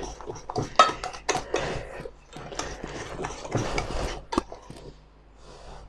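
A spoon knocking and scraping against a bowl in a run of short clinks and rustles as flour is spooned into cake batter. The sounds thin out near the end.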